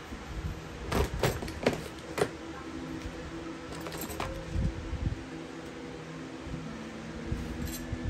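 Sharp metallic clinks and knocks from a box fan's parts being handled, about five in quick succession a second or two in and one more around the middle, over a steady low hum.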